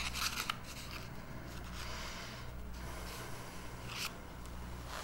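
Quiet room tone with a steady low electrical hum and a few faint brief rustles, one near the start and one about four seconds in.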